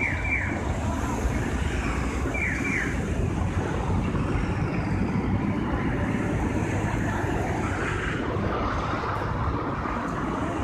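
Steady city road traffic: cars and vans passing through an intersection, a continuous low rumble of engines and tyres. A couple of short high chirps sound in the first three seconds.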